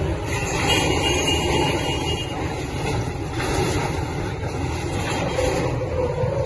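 A heavy vehicle's engine running steadily, with a thin high whine in the first two seconds.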